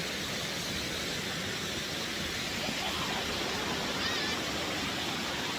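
Water pouring over a dam spillway into the pool below, a steady even rush.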